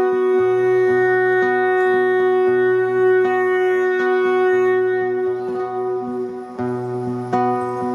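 Live music: a long held note with a wind-instrument sound, over plucked strings and a low bass line that comes and goes.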